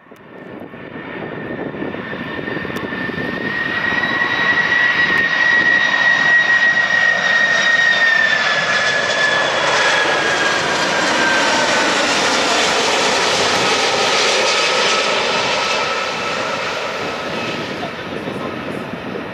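Lockheed C-5 Galaxy's four turbofan engines on landing approach: a jet roar with a strong high whine. It grows louder over the first few seconds, and about eight seconds in the whine drops in pitch as the aircraft passes.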